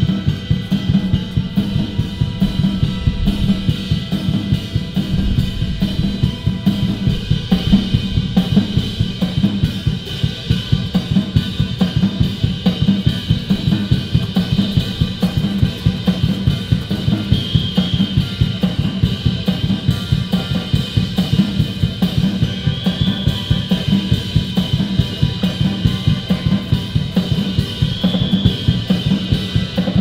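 Background music with a steady drum beat over sustained held tones.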